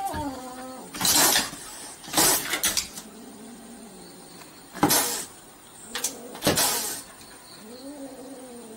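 Kitten hissing and spitting in several short, sharp bursts at a dog. Low, wavering growl-yowls come at the start and again near the end.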